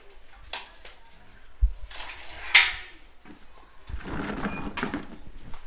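Bicycles being handled and wheeled: scattered clicks and knocks, with one loud rattling clatter about two and a half seconds in.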